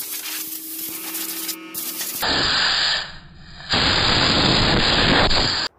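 Handheld electric power-carving tool grinding into cedar, heard sped up: a rough hissing grind in two loud stretches with a brief dip between them, cutting off abruptly near the end.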